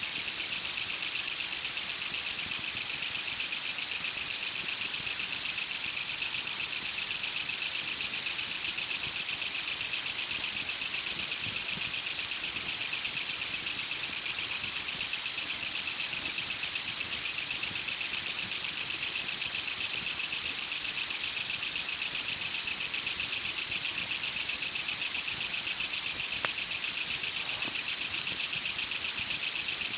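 Steady, high-pitched, finely pulsing buzz of an insect chorus, with two faint clicks near the end.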